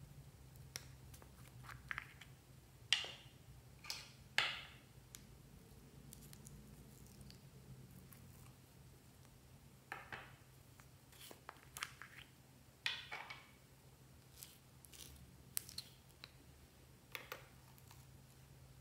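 Slime being pressed and squeezed by hand: scattered sticky pops and crackles every second or two, over a faint steady low hum.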